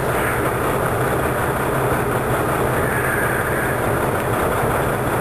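Semi truck's diesel engine running steadily, a constant low hum with no change in pace.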